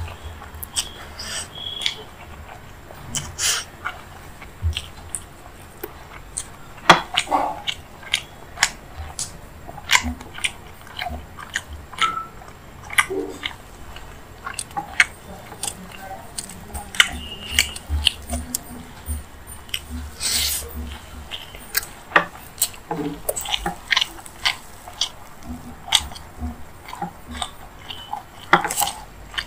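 Close-miked chewing and wet mouth smacks of someone eating rice mixed with paneer masala by hand, an irregular run of sharp clicks and short squelches.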